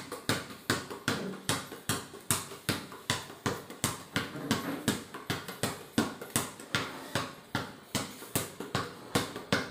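A basketball dribbled by hand on a hard tiled floor, bouncing steadily about three times a second.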